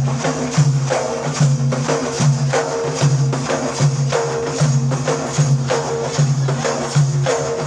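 Instrumental interlude between sung verses: a steady beat of hand percussion with sharp strikes and a low repeated note coming back about one and a half times a second.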